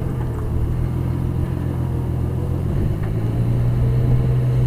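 Engine of the machine lifting railway ties, running steadily with a low hum that eases briefly about three seconds in.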